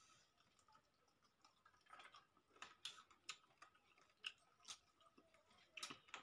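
Faint eating sounds: quiet chewing and scattered soft clicks and ticks of fingers working rice and curry on steel plates.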